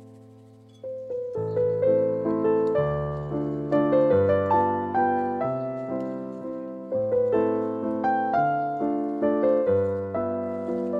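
Background piano music: a held chord fades out, then about a second in a melody of struck notes over chords begins.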